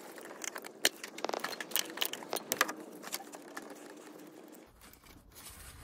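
Irregular small clicks, taps and scrapes of a hand tool and rubber coolant hoses being worked loose from an engine's thermostat housing.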